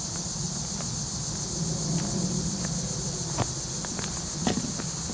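Steady high-pitched chorus of insects buzzing, over a low rumble, with a few sharp clicks in the second half.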